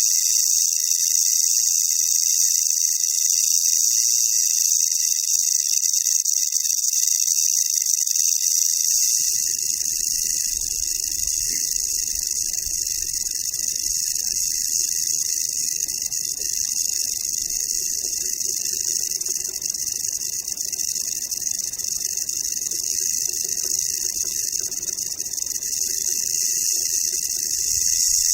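Rattlesnake rattling its tail: a continuous, steady high-pitched buzz. A low rumble comes in about a third of the way through and continues under it.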